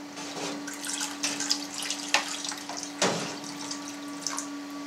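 Hot water poured in a thin stream from a plastic scoop into a vat of cheese curds and whey, trickling and splashing, with a couple of louder splashes about two and three seconds in. This is hot water added to warm the curd to 33 °C. A steady low hum runs underneath.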